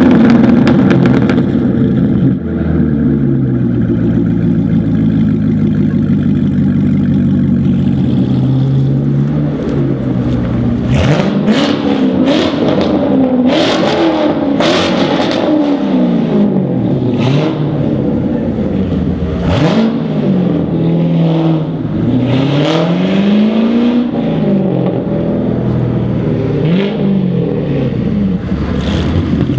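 Chevrolet Corvette C7's 6.2-litre V8 through an ASG aftermarket exhaust. It holds a steady, loud note for the first several seconds, then is revved up and down again and again, with sharp cracks through the middle stretch.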